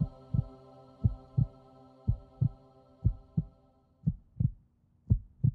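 Heartbeat sound effect in the soundtrack: paired low thumps, lub-dub, about one beat a second, over a sustained droning chord that fades away about four seconds in, leaving the heartbeat alone.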